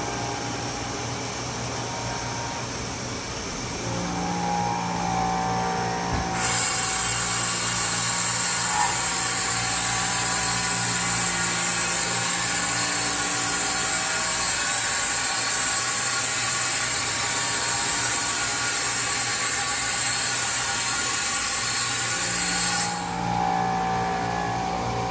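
Haas EC-400PP horizontal machining center running through a pallet index and change: a steady motor hum, joined about six seconds in by a loud, even hiss that cuts off suddenly near the end.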